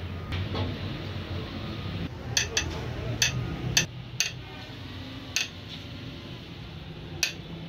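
Sharp metallic clinks, about seven at uneven intervals in the second half, as a steel bar wrench in a socket adapter is worked on the nozzle end of a Denso 2KD common-rail injector held in a vise. A low steady hum runs underneath.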